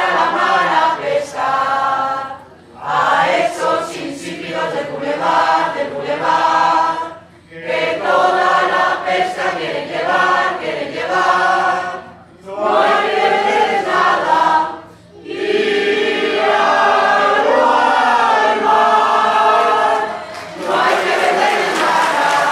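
Mixed choir of men's and women's voices singing a habanera in Spanish, in long phrases broken by brief pauses.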